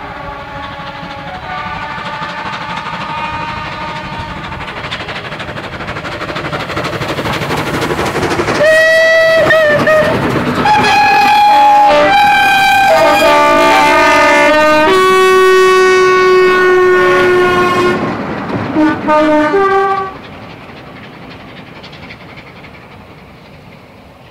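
A train running and growing steadily louder, then sounding a series of long, loud horn blasts at several different pitches. The horn stops abruptly about twenty seconds in, leaving a fainter train sound that fades.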